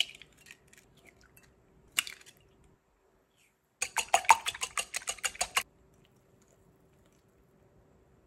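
Eggshells cracking and being pulled apart over a glass bowl, with a sharp knock about two seconds in. After a short gap, a wire whisk beats raw eggs against the sides of the glass bowl: quick metallic clinks, about eight a second, for just under two seconds.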